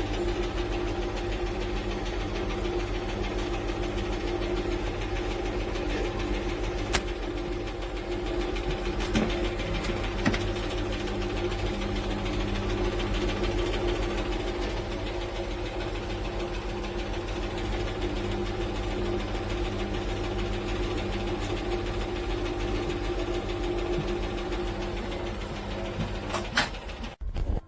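Washing machine running with a steady motor hum and a low, even pulsing, with a few sharp clicks. The sound cuts off abruptly near the end.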